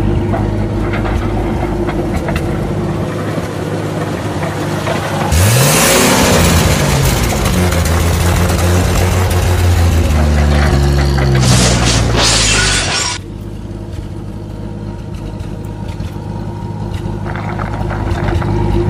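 Added vehicle engine sound effect over toy trucks: a steady engine drone that revs up about five seconds in with a burst of noise, then winds down in pitch and drops away about thirteen seconds in, with another noisy burst just before.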